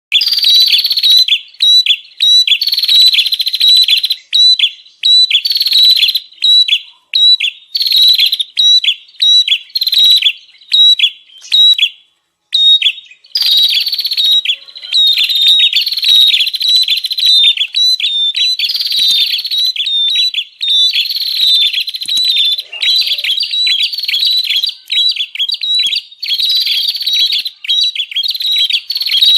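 Recorded prenjak birdsong used as a lure call: loud, fast, scolding chirps run together in busy phrases that repeat every second or two, with a brief pause about twelve seconds in.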